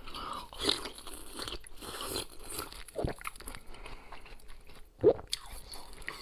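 Biting and chewing slushy ice frozen in a water bottle, with irregular crunching and a sharp, loud crunch about five seconds in.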